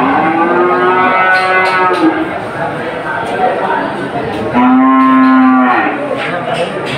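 Cattle mooing twice: a long moo of about two seconds at the start, then a louder, shorter one about four and a half seconds in, over steady background noise.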